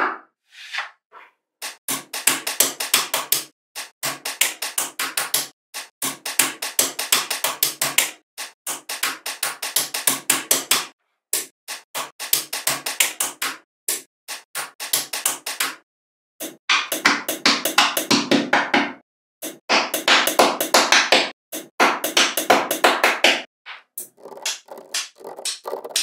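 Small magnetic balls clicking and snapping together in quick runs of several clicks a second, each run lasting one to three seconds with short silent gaps between.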